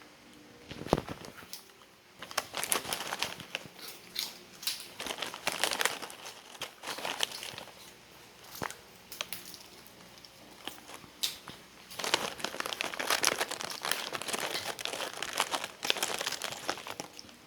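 Crinkling of a plastic snack wrapper being handled, in two long spells, with one knock about a second in.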